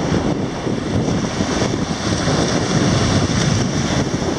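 Wind buffeting the microphone, with small waves washing onto the beach.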